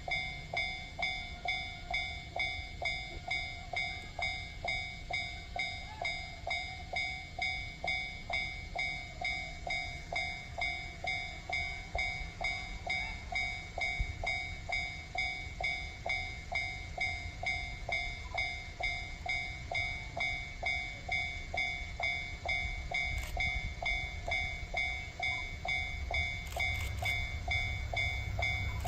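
Japanese level-crossing warning bell ringing steadily, a clanging tone repeating just under twice a second: the crossing's warning that a train is coming. Near the end a low rumble builds under it as the DE10 diesel locomotive approaches.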